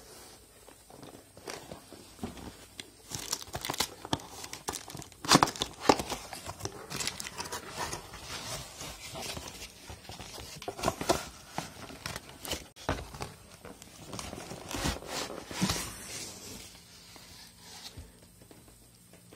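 Cardboard laptop box being handled and opened by hand: irregular scraping, rustling and crinkling of cardboard and packing with sharp knocks, loudest a few seconds in, fading out near the end.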